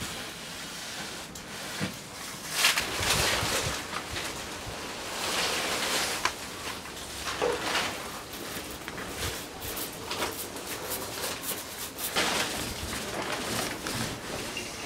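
Hand plane shaving a timber strip on a plywood canoe hull, a series of irregular rasping strokes, followed by primer being brushed onto the hull.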